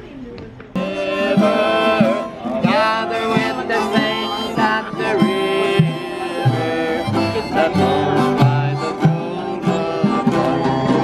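Acoustic guitars strumming and picking a country-style tune with a melody line over them. It starts suddenly about a second in, after a moment of crowd chatter.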